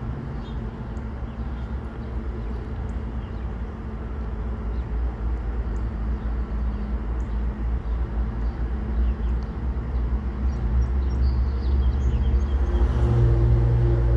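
Diesel freight locomotive's engine running as the train slowly approaches, its low drone growing steadily louder, with a stronger engine note coming in near the end.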